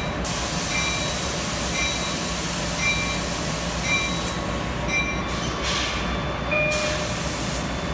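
LIRR train with an EMD DM30AC dual-mode locomotive running in electric mode on third-rail power, giving a steady low hum. A loud hiss starts suddenly just after the start and cuts out and back in during the second half. Over it, a short high tone repeats about once a second.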